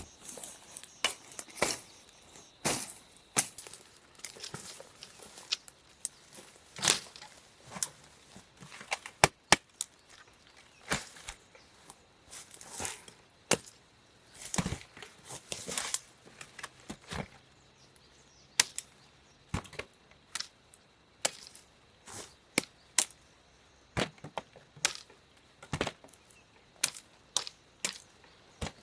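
Irregular sharp knocks and short swishing sounds, about one a second, like a blade or tool striking.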